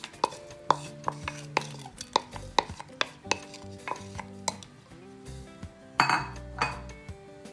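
A utensil clinking and tapping on a dish, a dozen or so sharp clicks, with a louder scrape about six seconds in, as chopped seasoning is scraped into the pot. Soft background music with held notes plays underneath.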